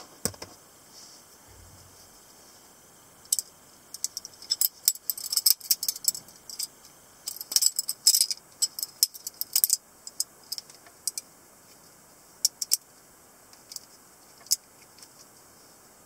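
Metal-handled balisong (butterfly knife) being flipped: the handles and blade click and clatter against each other in quick runs of sharp metallic clicks, busiest in the middle and thinning to a few scattered clicks toward the end.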